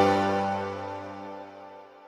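Background music ending: a last chord is struck and rings out, fading away over about two seconds.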